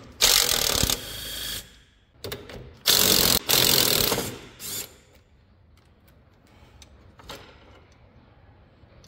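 Cordless impact wrench hammering a nut loose on a lawn tractor's steering linkage, in two bursts of about a second each, the second one about three seconds in with a brief break.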